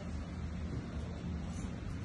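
Steady low background rumble of room noise, with no distinct events.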